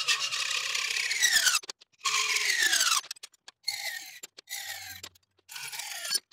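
Hacksaw cutting brass and stainless steel strip held in a bench vise: several separate stretches of rasping strokes. The metal rings through each stretch with a tone that falls in pitch.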